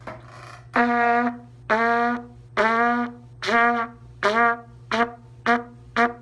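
Trumpet playing eight repeated low C notes, each started cleanly with a tongued 'ta' articulation. The first few notes last about half a second; the later ones grow shorter and come quicker.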